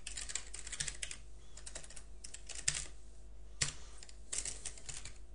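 Typing on a computer keyboard: quick runs of keystrokes with brief pauses between them.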